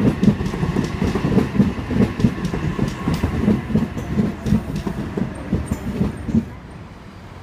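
Eight-car OSCAR (H-set) electric train running past: wheels clatter and knock over rail joints and points above a steady rumble. The clatter stops about six and a half seconds in as the last car goes by.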